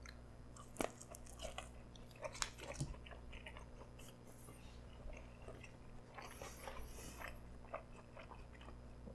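A man chewing a mouthful of pretzel-wrapped hot dog with cheese dip, close to the microphone: faint, irregular chewing sounds with a few soft clicks.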